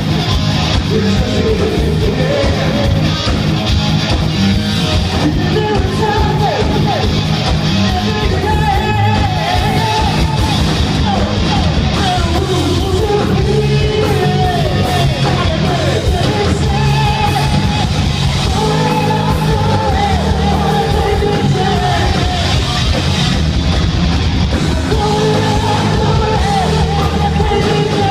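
Live hard rock band playing loud, with distorted electric guitars, bass and drums under a lead singer's wavering, held vocal lines.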